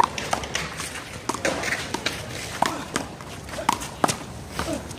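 One-wall handball rally: a quick, irregular run of sharp slaps and knocks, the ball struck by hand and hitting the wall and ground, with players' running footsteps and a few short sneaker squeaks.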